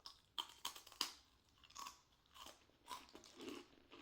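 Cheese arare, small Japanese rice crackers, crunched between the teeth: a quick cluster of sharp crunching bites in the first second, then slower chewing crunches about every half second.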